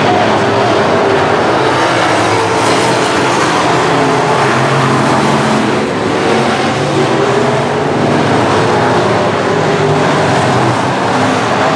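Several USRA B-Modified dirt-track race car engines running together at racing speed as the pack laps the track; loud and steady.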